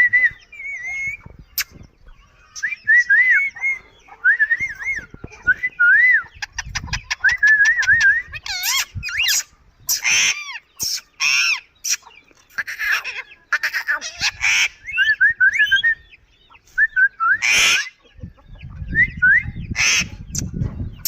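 Pet parakeets (Indian ringneck and Alexandrine) calling: a run of short, wavering, warbling whistles broken by several loud, harsh screeches.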